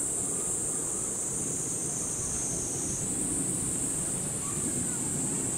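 A steady, high-pitched insect chorus drones without a break, over a low, even background rumble.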